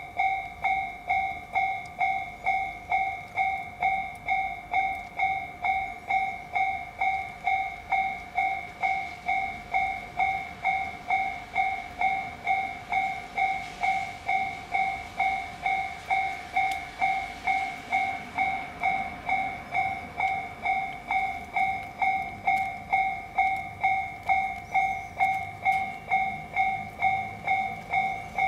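Japanese level-crossing warning alarm ringing, an electronic two-tone ding repeating evenly about twice a second. A faint rushing noise swells and fades midway.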